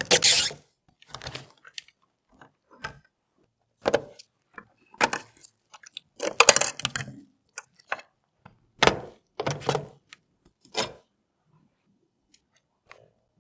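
PC parts and their packaging being handled: a string of irregular clicks, rattles and rustles that stops about eleven seconds in.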